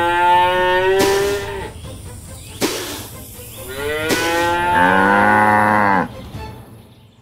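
Cow mooing: two long moos, the second starting about four seconds in and ending near the six-second mark, with a few short sharp noises between them.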